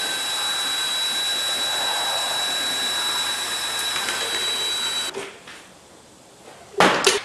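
Cordless drill running steadily with a paint-mixing paddle, stirring paint in a metal gallon can, with a high motor whine; it stops about five seconds in. Near the end come two loud thuds close together.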